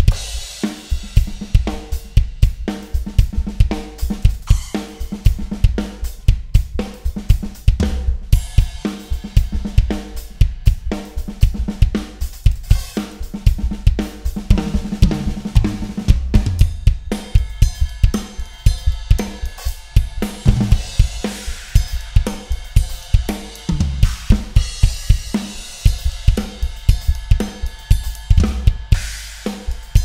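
Close-miked drum kit played hard and fast: Tama Starclassic Bubinga bass drum and toms, Pearl Sensitone brass snare, Zildjian cymbals and Wuhan chinas. It starts suddenly with rapid bass drum strokes under snare and cymbals, and a fill runs down the toms about halfway through.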